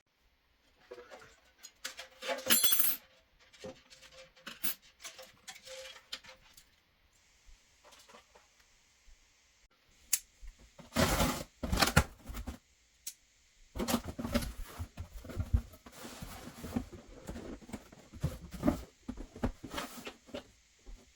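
Hands handling PC cooler hardware: small metal parts clink and click in uneven bursts, with a ringing metal clink about two and a half seconds in, and longer stretches of rustling handling noise near the middle and later on.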